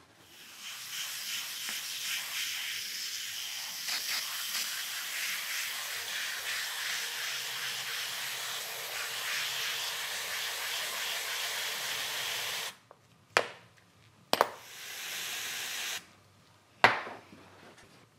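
Aerosol can of Mr Muscle oven cleaner spraying foam in one long continuous hiss of about twelve seconds. Then two sharp clicks, a shorter burst of spray, and another click near the end.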